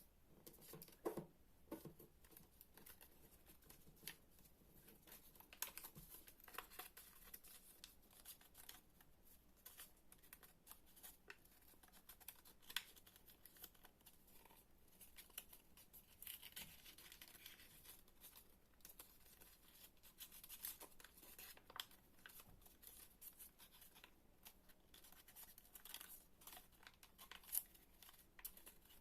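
Faint paper handling: a sheet being folded and creased by hand, with soft crinkling, rustling and scattered sharp clicks.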